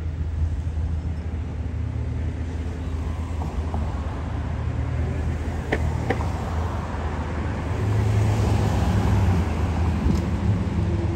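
Road traffic: a steady low rumble of vehicle engines, growing louder about two-thirds of the way through as a vehicle passes close by, with two short sharp clicks around the middle.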